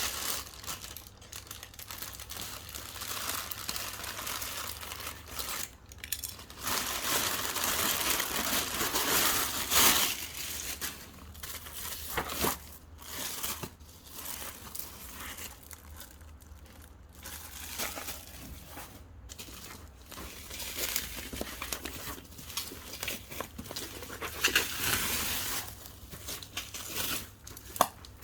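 Packaging being unwrapped by hand: irregular crinkling, rustling and tearing with scattered sharp clicks and handling knocks, loudest in stretches about a third of the way in and near the end.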